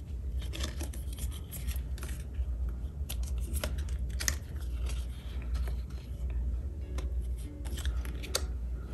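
Photocards being handled and slid into plastic sleeves and binder pockets: light plastic rustling, scraping and small clicks, over a steady low hum.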